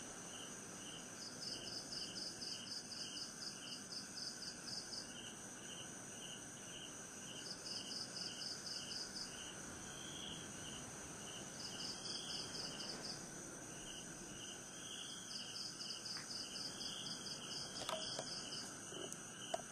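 Night insects, such as crickets, chirping in a chorus over a steady high whine. One chirps regularly about three times a second, and another joins in spells of a few seconds with a faster, higher pulsing. A couple of small clicks come near the end.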